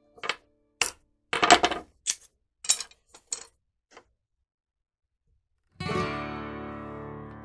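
A run of sharp clicks and taps through the first four seconds, then a strummed acoustic guitar chord about six seconds in that rings out and slowly fades.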